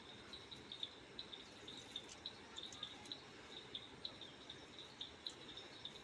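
Faint insect chirping: short, high chirps repeating irregularly over a soft low hiss.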